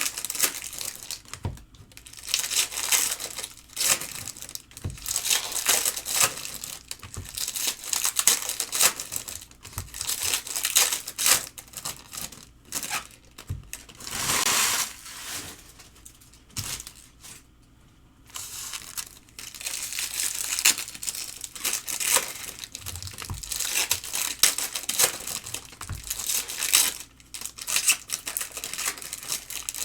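Foil trading-card pack wrappers crinkling and tearing as packs are ripped open and handled, in irregular rustling bursts with a longer tear about halfway through and a few soft knocks.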